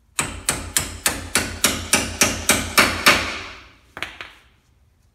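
Hammer tapping the toe link pinch bolt through the rear steering knuckle of a Ford Explorer: a run of about eleven sharp metal strikes, roughly three a second, then one more about a second later.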